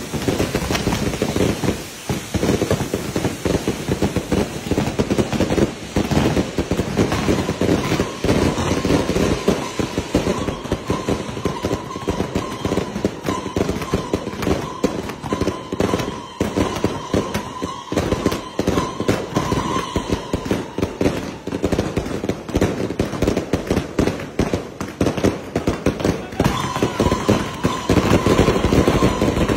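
Fireworks going off all around: dense, continuous rapid-fire crackling and popping of firecrackers and spark fountains. A thin steady tone rises above the crackle from about seven seconds in to about twenty, and again near the end.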